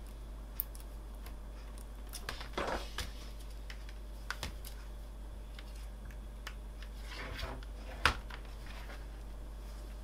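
Small clicks and rustles of hands handling an opened tablet and its parts, with one sharp click about eight seconds in, over a steady low hum.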